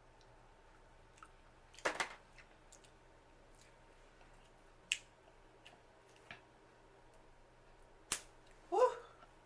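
Eating sounds from a seafood boil: a few scattered sharp clicks and cracks, from seafood shell being handled and broken, with a short mouth sound near the end.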